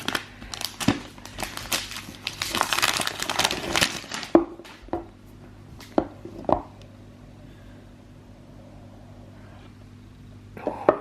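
Plastic wrap and packaging on a new iPhone X box being torn off and crinkled for about four seconds. Then come a few sharp clicks and taps as the box is opened and handled. A steady low hum sits underneath.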